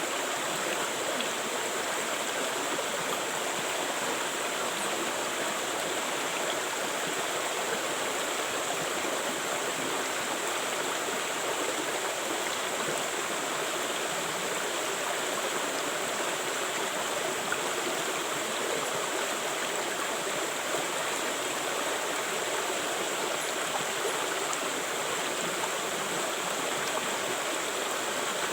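River water flowing, a steady, even rush of running water with no breaks.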